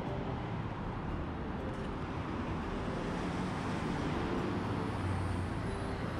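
Street traffic noise: motor vehicles running along the road, with a low engine hum that swells slightly about five seconds in.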